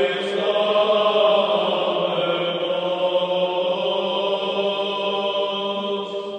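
A choir of men's voices singing Byzantine liturgical chant in long held notes, resonant in the stone cathedral.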